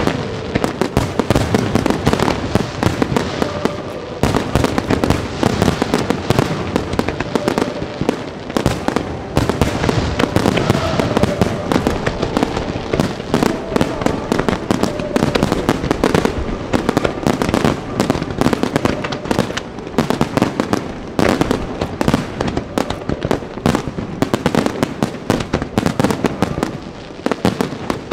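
Fireworks display: a dense, continuous barrage of shell bursts and crackling reports, many per second, with a brief lull near the end.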